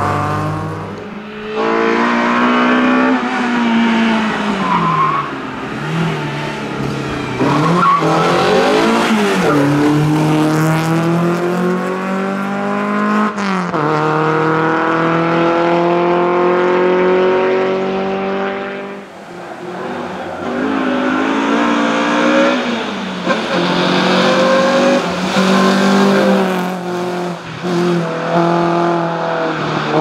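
Renault Clio rally car's engine pulling hard at full throttle. Its note climbs steadily through each gear and drops back at every shift, over and over.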